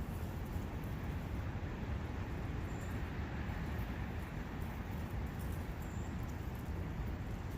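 Steady rushing of wind and a forest brook, an even noise with a low rumble. Two faint, brief high chirps come through, about 3 and 6 seconds in.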